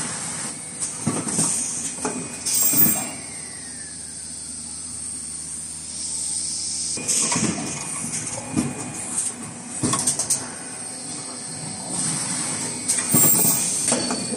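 Richpeace automatic N95 cup-mask machine running: a steady high hiss under irregular pneumatic clacks and knocks from its stations. For a few seconds near the middle, a tone slides down in pitch.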